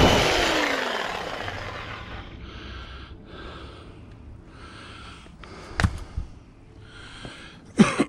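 A power tool's motor spins down after being switched off, its pitch gliding downward as it fades over the first second or two. Then a person breathes heavily, a breath about every second, with a couple of sharp knocks near the end.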